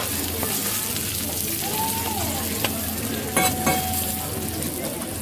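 Okonomiyaki and shredded cabbage sizzling on a flat griddle, with a metal spatula scraping and clacking on the plate, a few sharp clacks about three and a half seconds in.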